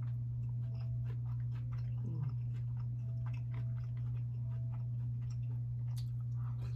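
A person chewing food close to the microphone: many small wet clicks from the mouth throughout, over a steady low electrical hum.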